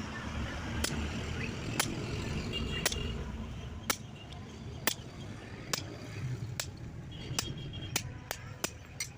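A blacksmith's hammer striking metal on an anvil about once a second, the blows coming faster near the end, over a steady low background rumble.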